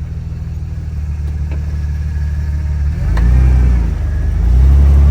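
Jeep engine running under load as it is driven, with two louder surges of engine speed, the first about three seconds in and the second near the end. The transmission has just been topped up with fluid after slipping.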